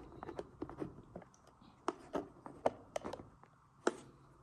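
Light, irregular clicks and taps of dishes and utensils being handled and moved on a table.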